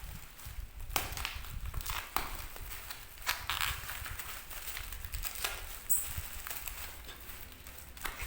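Crinkling and crackling handling noises with scattered sharp clicks, as of packaging being handled, over a low rumble.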